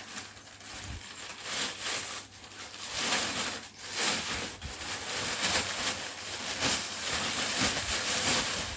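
Rustling and crinkling of a fabric backpack being handled and squeezed, in uneven swells with small scrapes.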